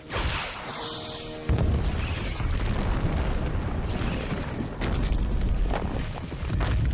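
Movie sound effects of helicopter missile strikes: a rushing sound, then from about a second and a half in a heavy explosion and a continuing deep rumble of blasts and crashing rock, with orchestral score underneath.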